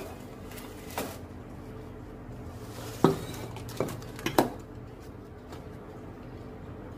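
A metal cake pan and kitchenware knocking and clinking against a counter, five sharp knocks spread over the first half, the loudest about three seconds in.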